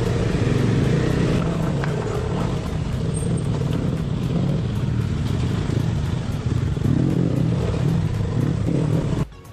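Motorcycle engine running steadily as the bike rides along a rough off-road track. The sound drops away abruptly near the end.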